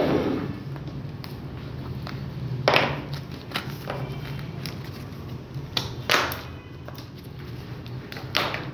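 Handling noise: a few short scrapes and knocks as an object is handled on a wooden desk, over a low steady hum.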